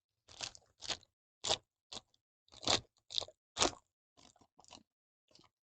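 Trading cards being slid and flipped against one another in the hand: about ten short, dry scrapes in the space of a few seconds, the later ones fainter.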